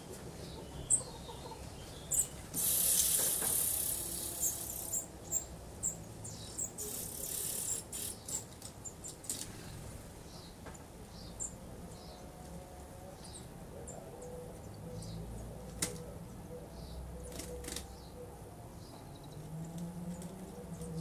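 Nestlings giving short, faint, high peeps scattered through, with two louder spells of feather-and-nest rustling in the first third as they shift about, and a few sharp clicks.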